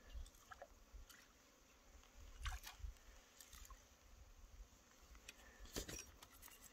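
Near silence: a faint low rumble and a few faint, scattered clicks from a spinning rod and reel being handled while a lure is retrieved.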